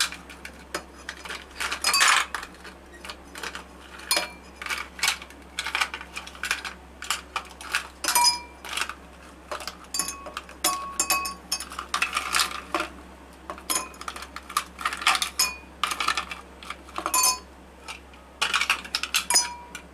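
Ice cubes dropped into glass tumblers, a string of sharp, irregular clinks, some leaving the glass ringing briefly.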